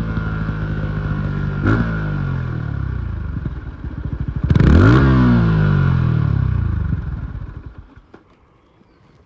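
Yamaha MT-15's single-cylinder four-stroke engine slowing down, its pitch falling, with a short throttle blip under two seconds in and a louder, quick rev about four and a half seconds in. The engine sound then falls away about eight seconds in.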